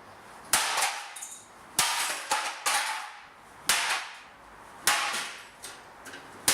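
A golf club striking a vintage General Electric fan heater's metal and plastic housing: about six hard clanging blows, roughly one a second, each ringing briefly.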